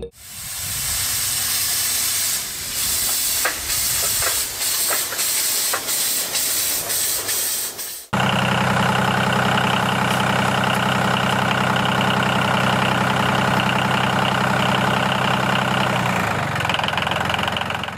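A steady hiss with scattered clicks. About eight seconds in, it cuts off abruptly to a steady mechanical drone, which shifts again near the end.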